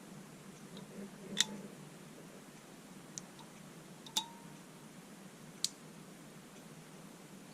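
Four isolated sharp clicks of small parts of a ratchet screwdriver being handled during disassembly, spaced a second or two apart, the first the loudest, over a steady low hum.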